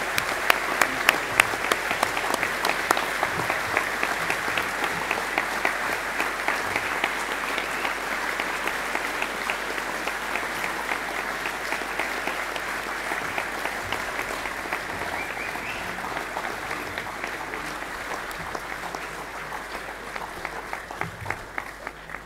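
Large audience applauding, many hands clapping together, gradually dying down near the end.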